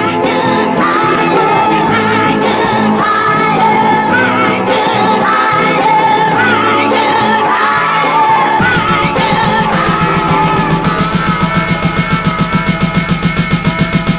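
Music with singing over a full backing. About eight and a half seconds in it switches to a fast, steady pulsing beat that builds in strength.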